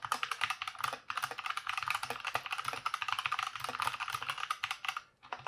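Redragon K530 60% mechanical keyboard with Outemu Box Brown switches being typed on quickly: a fast, dense run of keystroke clicks, with short pauses about a second in and near the end.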